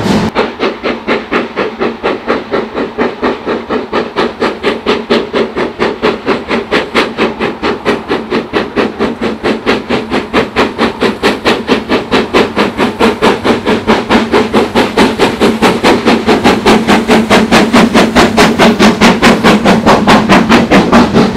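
GWR Castle-class four-cylinder 4-6-0 steam locomotive working hard with a train, its chimney exhaust beating steadily at about four to five beats a second. The beats quicken slightly and grow louder as the engine approaches.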